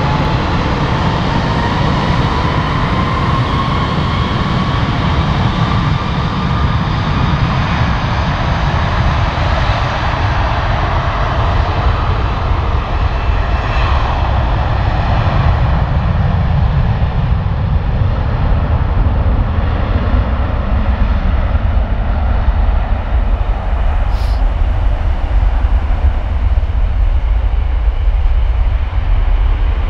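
Jet airliner taking off: its engines spool up to takeoff power with a whine rising in pitch over the first several seconds, over a steady deep rumble that gets heavier in the second half.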